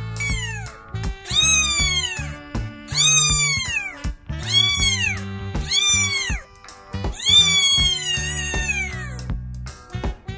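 Young kitten meowing insistently: a string of about six high, arched meows, each rising then falling in pitch, the last one drawn out longer. Background music plays underneath.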